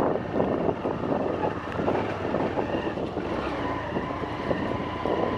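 Motorcycle engine running on the move, with wind buffeting the microphone and a steady whine coming in about halfway through.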